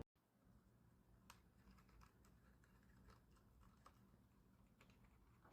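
Faint typing on a Cherry MX Board 3.0S mechanical keyboard: light key clicks at an uneven pace, a few a second, over a low hum.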